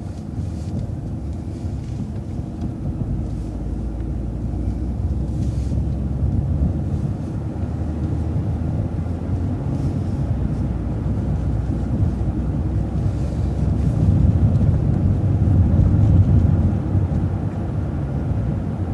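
Vehicle driving, heard from inside: a steady low engine and road rumble that swells a little about three-quarters of the way through.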